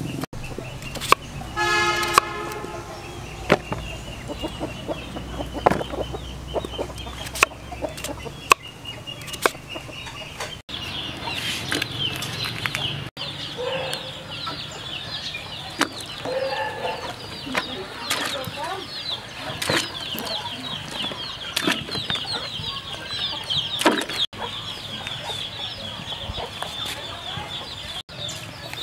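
Chickens clucking, with one short pitched call about two seconds in and dense high chirping from about ten seconds on. A knife knocks and scrapes on a wooden chopping block in the first few seconds.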